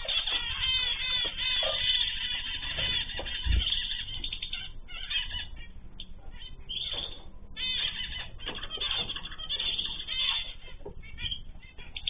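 Mixed aviary of small cage birds (canaries, zebra finches, goldfinches and cockatiels) chirping and singing over one another in a continuous chorus, with rapid repeated notes. A soft low thump about three and a half seconds in.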